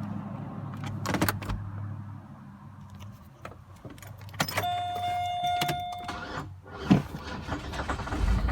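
A 2004 Chevy Malibu engine idles and then dies away about two seconds in, which fits the stall the owner gets when the car is put in drive at idle. Clicks and clunks follow, then a steady electronic chime for about two seconds and a single loud knock near the end.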